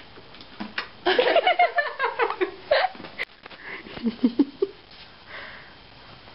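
People laughing and giggling in bursts: a long peal about a second in and a shorter, lower one around four seconds in, with a few short clicks.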